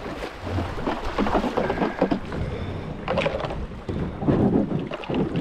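Canoe running a shallow creek riffle: rushing water around the hull with a low rumble and irregular knocks and swishes from the boat and paddle.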